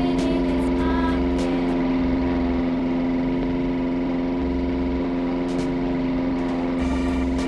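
Ceiling fan running, its motor giving a steady hum with a few light ticks scattered through.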